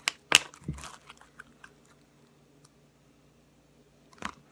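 Slime being squished and pulled by hand, making a few sharp sticky clicks and squelches in the first second and one more faint one near the end.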